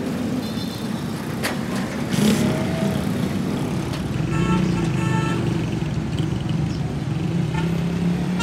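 Street traffic: small motorbike and loader-rickshaw engines running and moving off, with a steady low engine hum. A vehicle horn gives a quick series of short beeps about four seconds in.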